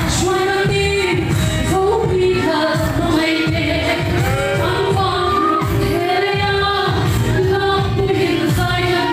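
A woman singing a worship song into a microphone, amplified through a sound system. A large drum keeps a steady beat underneath.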